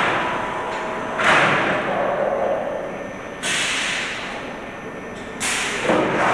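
Automatic frame-transfer machine for loaded steel frames working, with three sudden rushing bursts of noise about two seconds apart, each fading away over a second or so.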